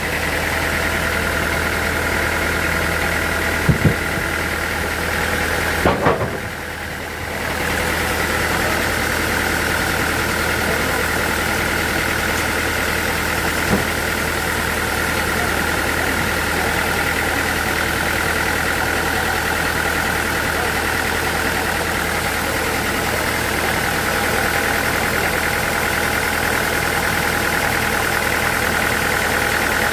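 Sawmill machinery running steadily with a constant hum and a high whine, broken by a few sharp knocks and a brief drop in level a few seconds in.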